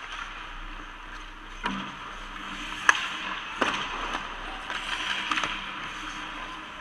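Ice hockey play: skate blades scraping and carving on the ice, with several sharp cracks of sticks striking the puck or the puck hitting the boards.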